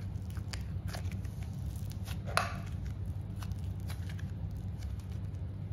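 Pink slime mixed with foam clay squeezed and kneaded by hand in and out of a small plastic cup, giving scattered small crackles and clicks, with one louder crackle about two and a half seconds in. A steady low hum runs underneath.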